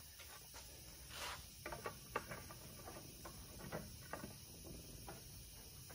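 Faint, scattered clicks and light knocks of tools and a wooden rake handle being handled at a metal workbench and set in a bench vise.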